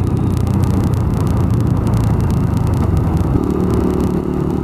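Motorcycle engine running under way, with wind rushing over the microphone. A little over three seconds in, the engine note steps up to a higher pitch.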